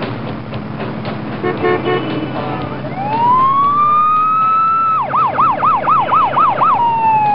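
Police car siren. It winds up in pitch to a steady wail, switches to a fast yelp about five seconds in, then slowly winds down.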